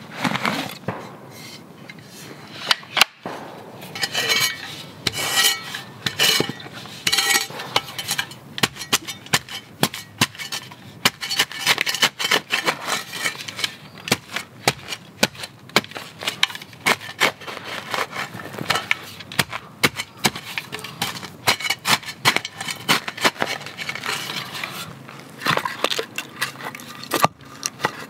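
Folding shovel digging into soft soil: repeated sharp chops of the metal blade into the ground, with scraping and brief metallic clinks.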